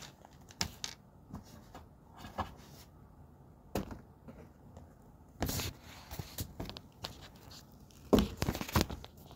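Handling noise close to a phone's microphone: scattered knocks, taps and rustles as objects are moved about right in front of it, loudest in a cluster about eight seconds in.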